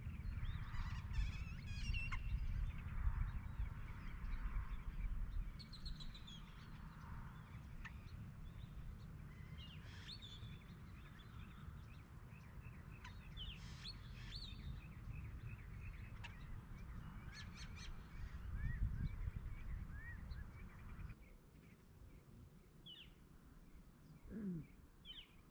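Birds chirping and calling in short, scattered notes over a low steady rumble; the rumble drops away suddenly near the end.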